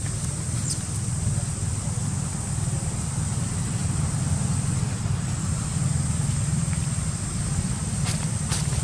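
Steady low rumble of outdoor background noise, with a thin, steady high hiss above it and a few faint clicks near the end.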